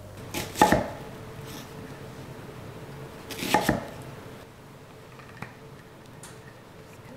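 Kitchen knife chopping an onion on a wooden cutting board: two short bursts of quick strokes, about three seconds apart.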